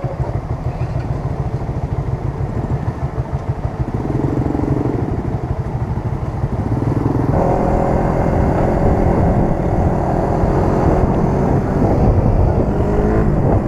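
Motorcycle engine idling with a low, even pulsing. About seven seconds in it gets louder and steadier under throttle as the bike rides off, with other motorcycle engines running close by.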